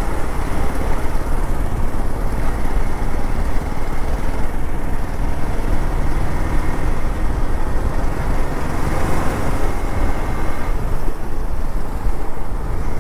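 Hero Xpulse 200 4V motorcycle under way, its single-cylinder engine running steadily beneath a constant rush of wind and road noise.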